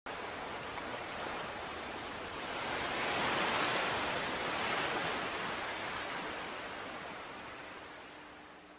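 Sea surf washing onto a sandy beach, a steady rush that swells about three seconds in and then slowly dies away.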